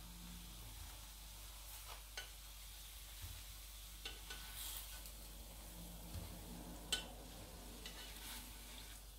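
Faint sizzling of hot oil in a frying pan just lifted from the heat, with a few light knocks as fried banana slices are slid from the pan onto a plate, the loudest about seven seconds in.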